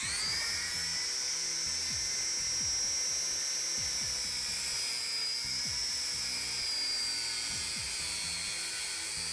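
Kress angle grinder running at full speed, its abrasive disc cutting a rusty steel bar: a steady high whine with the grinding hiss of the cut, dipping a little in pitch as the disc is pressed in. The gearbox's end play has been taken up with a makeshift fix, though the worn gear is still due for replacement.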